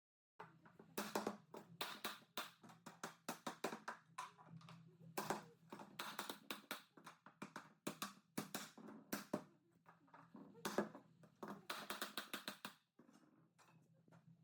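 A quick, irregular run of light taps and knocks over a faint, steady low hum.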